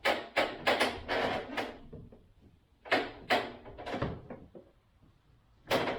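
Vinyl-wrapped PVC soffit boards knocked and bumped as they are worked into place: a quick run of about half a dozen knocks in the first second and a half, two more about three seconds in, and one more near the end.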